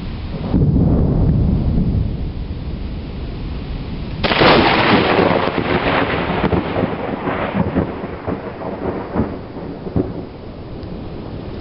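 Thunder during a rainstorm. A low rumble comes about half a second in. About four seconds in there is a sudden sharp crack, which crackles and rumbles away over the next five seconds, with rain falling throughout.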